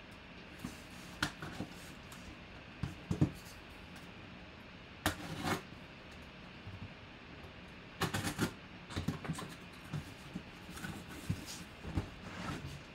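A folding knife slitting the tape on a cardboard box, then cardboard flaps and packing scraping and rustling in irregular bursts as the box is opened and an inner box is pulled out.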